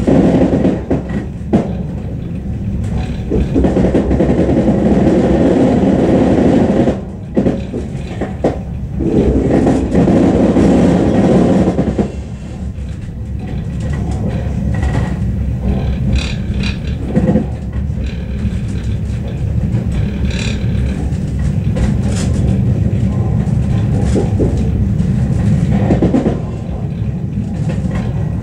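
Suburban train running, heard from inside the carriage: a steady rumble with the wheels clicking over rail joints. It is louder in the first dozen seconds and eases somewhat after, when a few faint high squeals come through.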